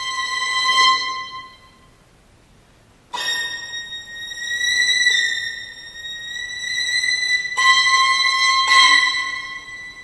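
Solo violin playing long held high notes. One note fades away within the first second and a half, a brief hush follows, then a high note starts suddenly about three seconds in and is held, stepping slightly in pitch and swelling again before it fades near the end.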